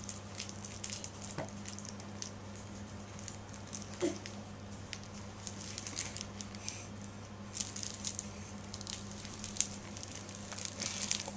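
A textured baby toy crinkling and rustling in irregular crackles as it is handled, over a steady low hum. There are two short, louder sounds about a second and a half and four seconds in, which fit the baby's hiccups.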